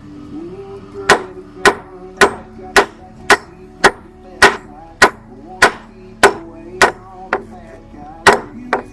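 Hammer blows on wooden floor joists: about fourteen sharp strikes in a steady rhythm of roughly two a second, starting about a second in, with a short pause before the last two.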